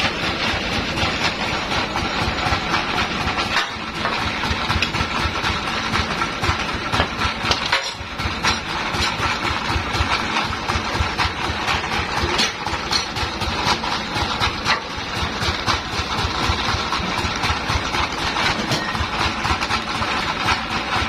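Sawmill machinery running steadily, with a fast, even low throb like an engine at idle.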